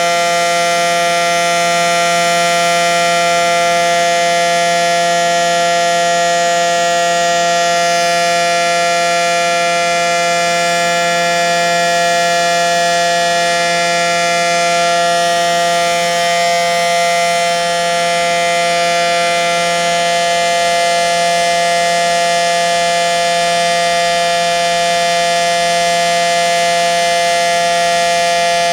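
Federal Signal SD-10 electromechanical outdoor warning siren sounding a steady tone, its pitch holding level, during a routine siren test.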